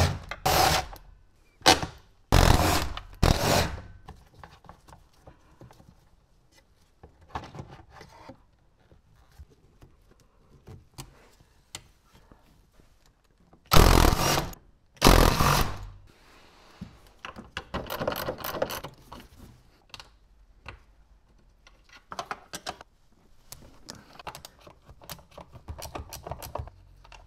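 Hand-tool work on a car's shifter assembly: a handful of loud, sudden bursts of noise, each under a second, clustered at the start and again twice about fourteen seconds in, then scattered clicks, knocks and scraping as parts are handled.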